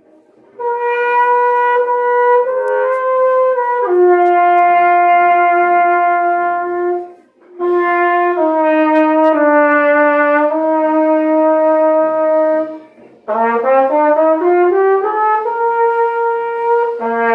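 Getzen Caravelle flugelhorn played solo, with a full-bodied tone: three slow phrases of long held notes stepping downward, with short breaks between them. The last phrase opens with a quick rising run of notes before settling on a held note.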